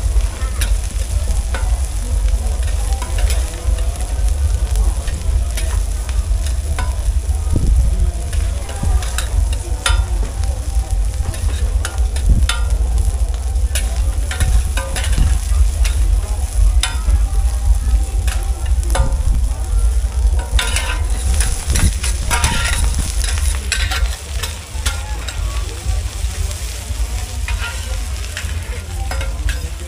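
Food frying and sizzling in a pan, stirred with a utensil that clacks and scrapes against it at irregular moments, more busily about two-thirds of the way through, over a steady low rumble.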